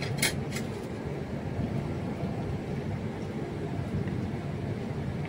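Steady low drone of a cruise boat's engine, with a few short clicks in the first half-second.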